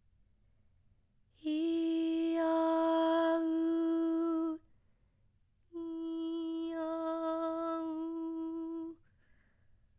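A woman's voice holds two steady sung notes around E4, each about three seconds long, with a short gap between them. Breath noise mixes into the middle of each note, which then clears to a cleaner tone. This is a demonstration of breathy versus clear voice quality.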